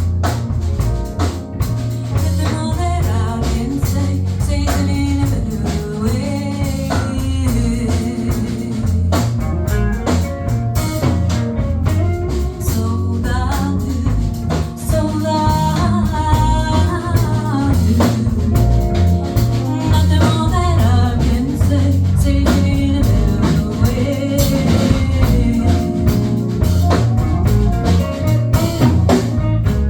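Live band playing a song, with a singer's voice carried over the instruments throughout.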